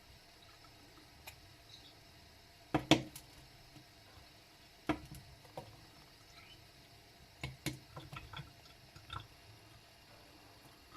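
Scattered sharp clicks and taps made by two-month-old lovebirds in their cage, coming singly and in small irregular clusters, loudest about three seconds in.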